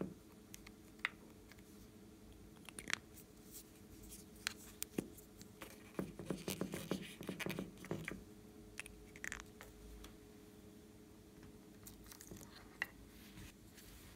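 Hands handling soft modeling clay and foam pieces in a glass dish: scattered soft clicks and taps, with about two seconds of rapid crackly, squishy handling noise around six seconds in, over a faint steady hum.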